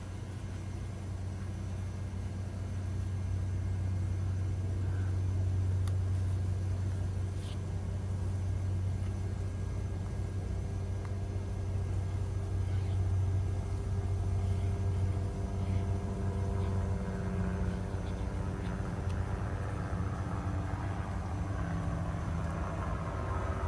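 Airplanes flying over: a low steady rumble through the first half, then engine noise that swells in the last several seconds.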